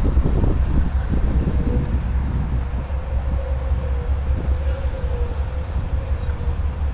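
Amtrak diesel-electric locomotives, a GE P42DC and a Siemens ALC-42, pulling a passenger train away under power: a steady low rumble with a faint held tone over it.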